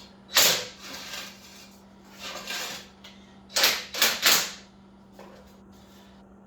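A jack being set and worked under a motorcycle's rear tire: a handful of short scrapes and clanks, three of them close together about three and a half to four and a half seconds in.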